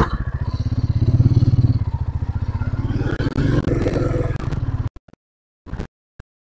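Royal Enfield Classic 350's single-cylinder engine running with an even beat of exhaust pulses as the motorcycle rides away, easing off in level. The sound cuts off suddenly about five seconds in, leaving only a couple of faint clicks.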